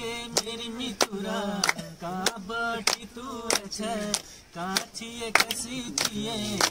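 Men singing a Kumaoni folk song without instruments, with steady hand claps keeping time, a clap about every half second or so.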